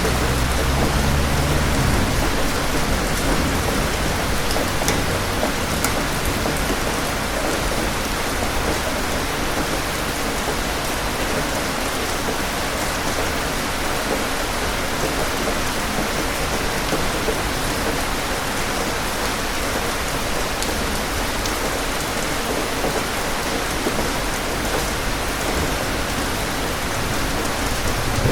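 Steady, heavy rain falling, an even hiss of drops, with a low rumble of thunder fading away in the first two seconds.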